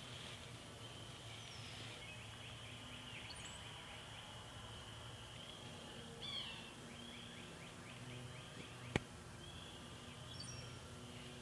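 Evening outdoor ambience: a steady high-pitched trilling chorus, with a few short bird chirps about six seconds in and a single sharp click about nine seconds in.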